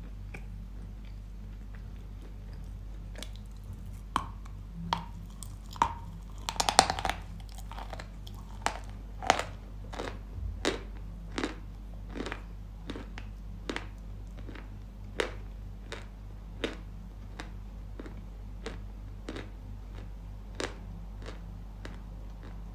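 Dry Yampol chalk being bitten and chewed close to the microphone: sharp crunches begin about three seconds in, a quick cluster of crunches comes about seven seconds in, then steady chewing crunches follow at roughly one and a half a second.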